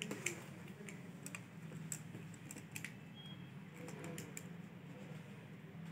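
Light, irregular clicks and taps of a small screwdriver working on the metal terminals and plastic casing of an opened extension board, over a low steady hum.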